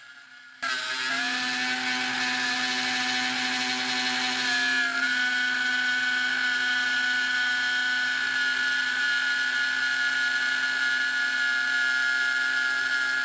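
Eleksmill desktop CNC mill's spindle motor whining steadily as its end mill cuts into particle board, which is extremely noisy. The whine starts suddenly about half a second in and dips slightly in pitch about five seconds in.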